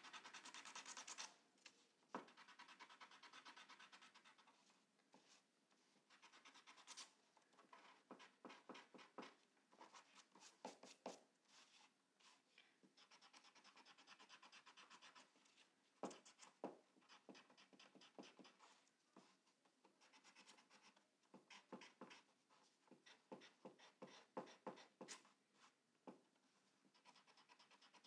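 Faint rubbing and scratching of a pencil's rubber eraser being worked back and forth over paper letters to erase pencil lines, in runs of quick strokes with short pauses between.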